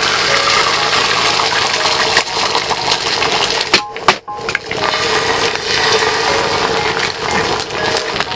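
Eggs sizzling as they fry on a hot griddle pan, cracked straight onto it. The sizzle drops out briefly about halfway through.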